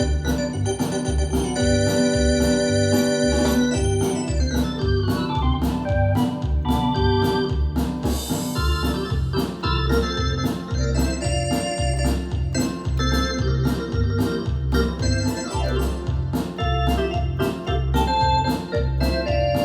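Yamaha DX7 FM synthesizer playing an organ-like patch: sustained chords and melody with a falling run of notes about five seconds in, over a pulsing bass line and a steady drum beat.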